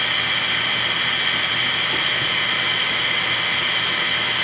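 Steady radio static hissing from a ghost box (spirit box), a radio scanner that sweeps continuously through stations.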